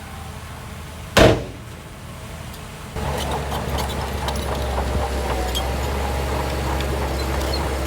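Diesel engines of heavy earthmoving machinery running, with one short, loud burst about a second in. At about three seconds a louder, closer engine drone sets in abruptly, with steady low hum and scattered metallic clatter over it.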